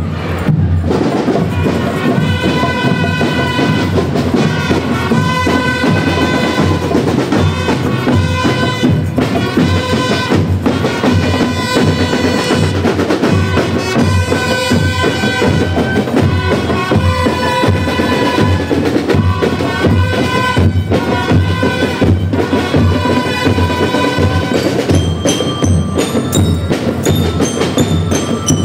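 School rhythm band playing a march: drums keep a steady beat under sustained melody notes. Near the end, separate ringing bell notes, like bell lyres, pick out a tune over the drums.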